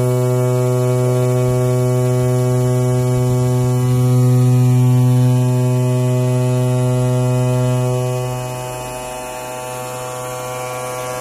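Pneumatic oscillating knife on a CNC foam cutter buzzing steadily as its blade cuts through thick foam; the buzz grows quieter about eight seconds in.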